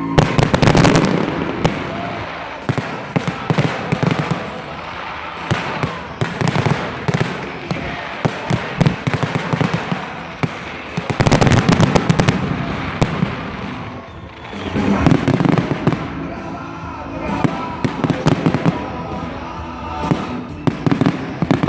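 Fireworks bursting and crackling in dense volleys, with the heaviest barrages about a second in and again around eleven seconds, over show music.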